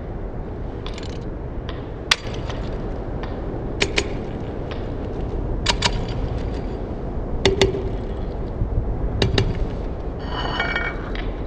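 Hard ceramic clinks and knocks from a ceramic pot being handled, several of them in close pairs, over a steady low background noise. Near the end comes a short, ringing clink.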